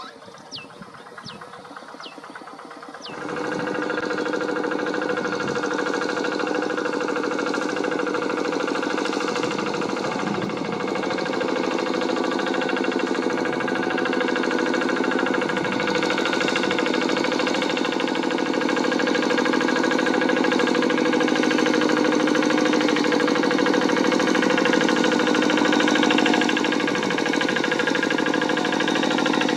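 Kubota single-cylinder diesel engine of a walking hand tractor running. About three seconds in it suddenly gets much louder and settles into a steady drone. Before that, over a quieter engine, a short falling chirp repeats several times.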